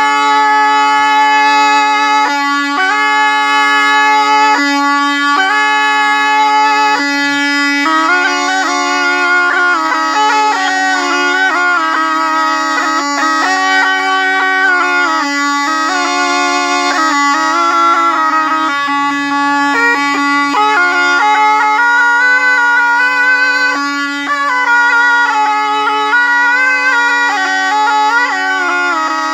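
Been (pungi), the gourd-bodied double reed pipe, played without a break: one pipe holds a steady drone while the other plays a melody of short held notes stepping up and down above it.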